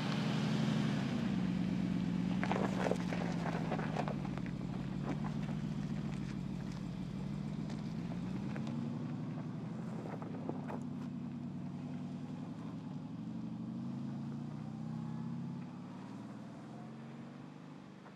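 The 2016 Mercedes-Benz G 500's 4.0-litre biturbo V8 running at low revs as it crawls off-road, its pitch rising and falling slowly with the throttle. A few sharp knocks come about three seconds in and again about ten seconds in. The engine fades away near the end.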